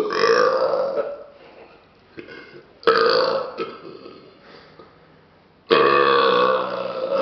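A man belching loudly, one long burp after another. One trails off in the first second, a shorter one comes about three seconds in, and a long, loud one starts near the end.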